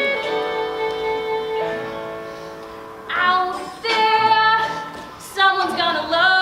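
A child singing a stage-musical song over instrumental backing. A long held note opens it, then after a short lull come new sung phrases with vibrato.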